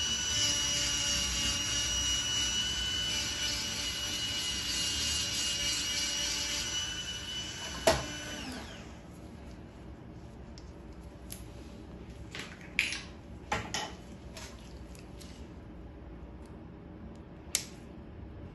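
Podiatry electric nail drill with a pointed bur running with a steady high whine as it grinds down a thick fungal toenail, winding down about eight seconds in after a sharp click. Then a handful of short, sharp clicks from hand instruments.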